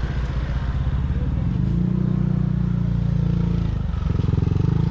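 A motorcycle engine running loud and steady. It grows stronger about two seconds in and dips briefly near the end before picking up again.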